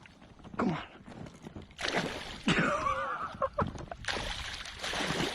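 Water splashing and sloshing beside a kayak as a hooked northern pike thrashes near the surface while being landed, in two bursts about two and four seconds in, with a short strained vocal sound between them.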